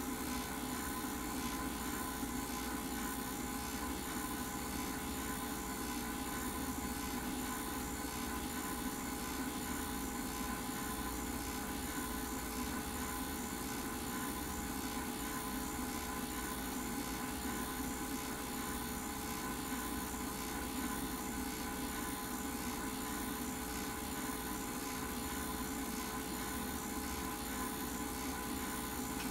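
Film projector running: a steady motor whir with a constant hum, unchanging throughout.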